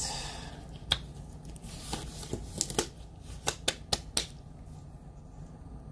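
Hand-handling noise from small objects on a table: a scattered series of sharp clicks with light rustling, busiest in the first four seconds and then quieter.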